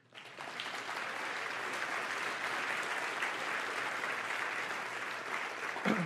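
Audience applauding: clapping starts abruptly and holds steady, easing off slightly near the end.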